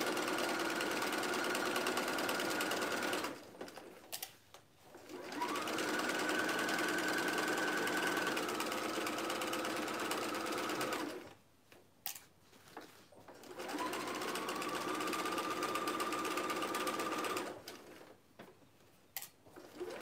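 Electric domestic sewing machine stitching a curved seam in three spells of a few seconds each, stopping between them. Each spell starts with a short rising whine as the motor speeds up, then holds steady.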